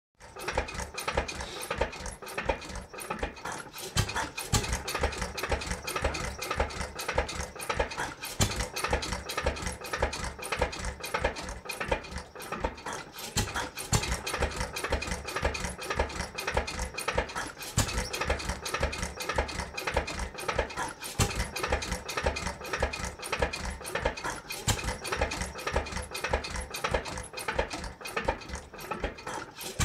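Lorenz 3–4 hp single-cylinder stationary engine running steadily, a rapid, even beat of strokes with occasional louder ones.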